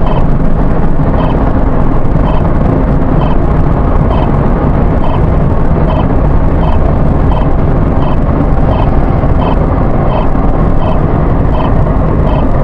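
Steady road and engine noise inside a car's cabin while it cruises at about 80–85 km/h on a highway, with faint, evenly spaced ticks about every two-thirds of a second.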